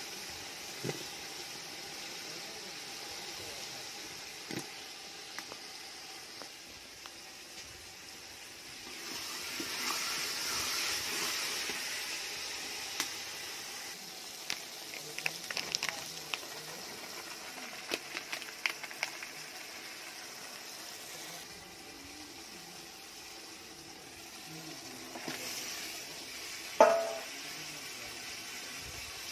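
Curry sizzling and bubbling in a metal pot, a steady hiss that swells for a few seconds. From about halfway through, a metal spoon clinks and scrapes against the pot as it is stirred, and a single sharp metallic clank rings out near the end.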